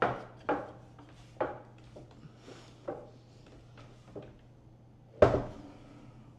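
A series of knocks and clunks from gear being handled, the loudest about five seconds in, over a steady low hum.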